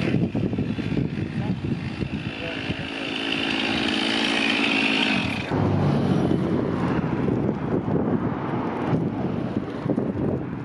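A chainsaw running while brush is cleared, rising in pitch and holding for a few seconds. About halfway through it cuts to the crackle of flames burning a truck, with a low hum under it.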